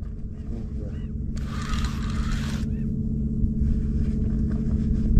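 A boat motor running steadily with a low, even hum that slowly grows louder. About a second and a half in there is a brief hissing rush.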